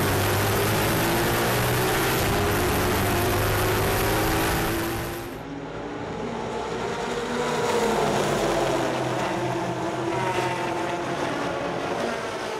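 Onboard sound of a Ford Mustang race car under hard acceleration, engine and wind noise together. About five seconds in it cuts to a trackside sound, quieter, where the field of race cars passes, engine notes swelling and bending in pitch and then fading.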